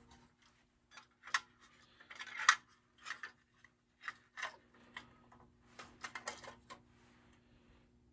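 Small metal clicks, taps and scrapes from working the hinged toolbox doors of a pressed-steel Buddy L toy contractor truck and handling the toy. They come irregularly, the loudest about two and a half seconds in.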